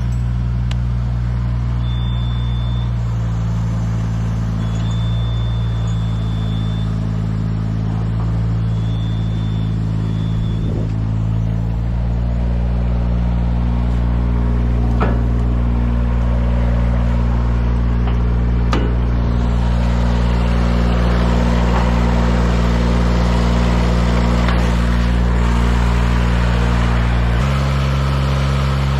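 A large engine running steadily, with a low even drone that shifts to a new steady pitch a few times: about three seconds in, around twelve seconds and near the end.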